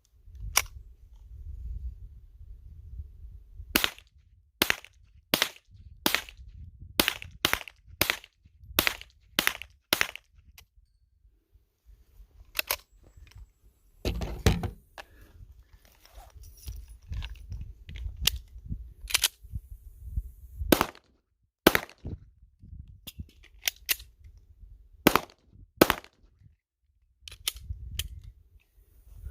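Canik TP9SFX 9mm pistol being fired: a quick string of about ten shots, roughly three every two seconds, then slower single shots spaced a second or more apart, over a low rumble.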